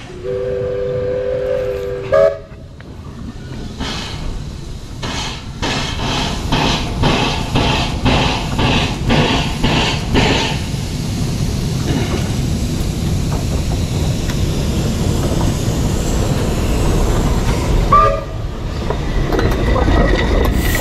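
Pichi Richi Railway's W-class 4-8-2 steam locomotive W 934 sounds a two-note steam whistle for about two seconds, then works past at close range. Its exhaust beats come about two a second, followed by the low rumble and clatter of its driving wheels on the rails, with a brief squeal near the end.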